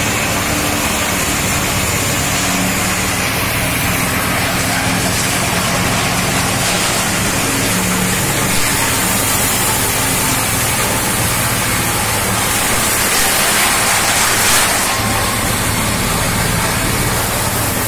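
Wood crushers running steadily, their motors humming under a loud, continuous hiss and grind as waste wood sticks are fed in and chewed into sawdust.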